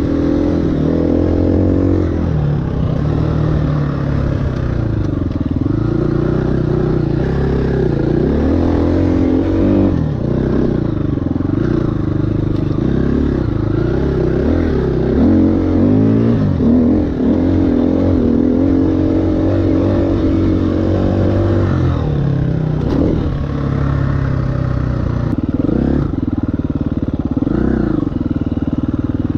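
2018 KTM 350 EXC-F's single-cylinder four-stroke engine being ridden hard, its pitch rising and falling every second or two as the throttle opens and closes, holding steadier for a few seconds later on.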